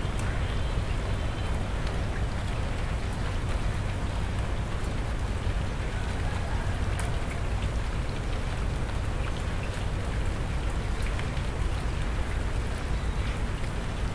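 Steady rain falling on a flat concrete roof and its puddles, with scattered sharp ticks of individual drops.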